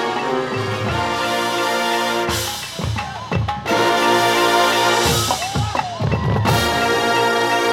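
Marching band playing: brass held in full chords with the drumline, twice breaking off into short passages of drum hits.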